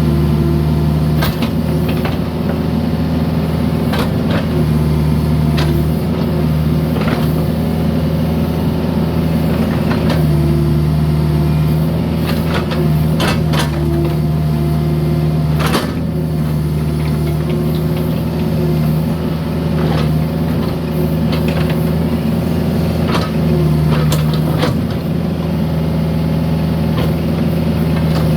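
Mini excavator engine running steadily, with irregular knocks and clanks as the bucket breaks up and moves concrete.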